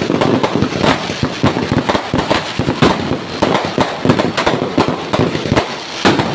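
Fireworks going off in a rapid, unbroken string of sharp bangs, many a second and overlapping, with no pause.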